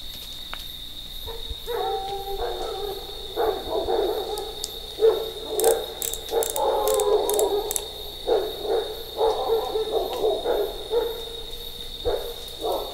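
An unidentified animal calling again and again in short pitched calls, over a steady high-pitched insect trill, with a quick run of sharp clicks about six seconds in.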